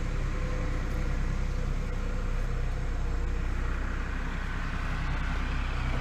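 Diesel engine idling steadily: a low, even drone that holds at one speed throughout.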